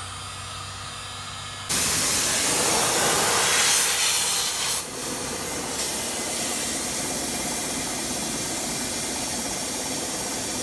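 Compressed air from an air compressor's blow nozzle hissing into the bumper cavity. It starts suddenly about two seconds in, after a steady low hum, is loudest for about three seconds, then settles to a steady hiss as too much air leaks out for the dent to pop.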